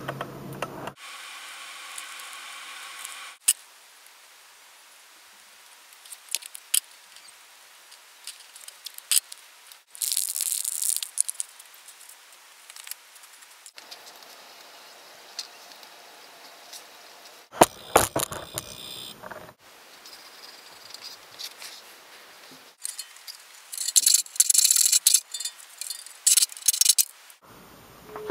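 Workshop handling noises in a string of short clips that change abruptly every few seconds: scattered clicks and taps, small metal clinks and rattles, and brief rustling or scraping, with a louder rough noise for a couple of seconds about two thirds of the way in.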